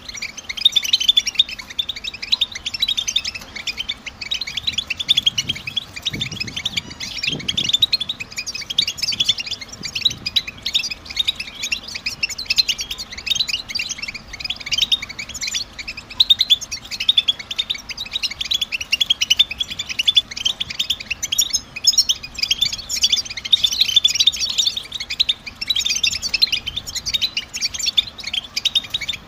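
European goldfinch twittering: a dense, unbroken stream of quick, high chirping call notes.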